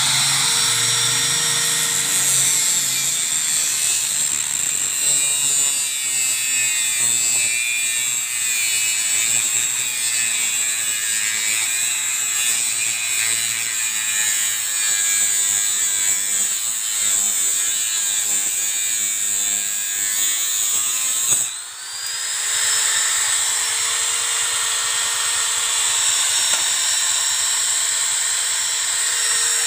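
Electric angle grinder grinding a used steel leaf spring, a steady high whine with harsh grinding as the disc bites the metal. About 21 seconds in it cuts out briefly and spins back up to speed.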